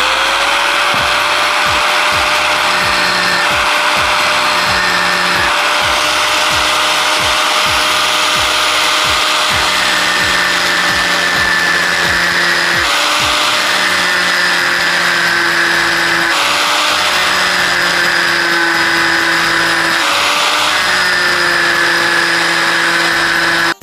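Electric angle grinder running continuously at full speed. Its motor whine holds steady and dips slightly in pitch a few times, over a loud hiss.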